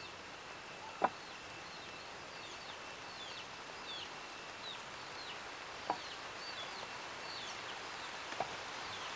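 Wooden rolling pin working dough on a plastic board, with a few sharp knocks of the pin, about a second in, near six seconds and near the end. Birds chirp repeatedly in short falling notes over a steady high insect-like whine.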